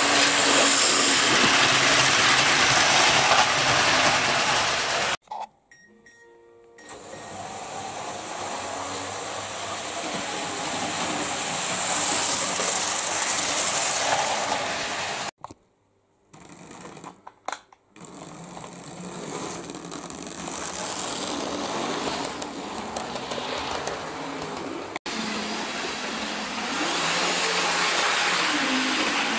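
Model railway trains running on the layout's track: a steady whirring rumble of locomotive motors and wheels on the rails, swelling as trains pass close and broken twice by a few seconds of near silence.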